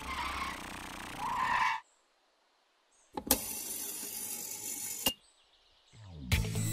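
Cartoon sound effects: a small vehicle driving, cutting off about two seconds in. After a second of silence comes an even mechanical noise about two seconds long that starts and stops sharply with a click, and background music begins near the end.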